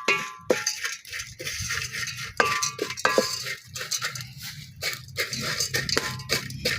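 Small dried fish (mukene) being stirred in a dry metal saucepan: a busy run of rattling, scraping and short metallic clinks, over a faint low hum.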